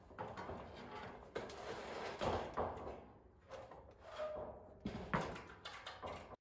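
Sheet of metal roofing scraping and knocking against a wooden roof frame as it is pushed and shifted into place by hand, with irregular clicks and a brief metallic ring about four seconds in.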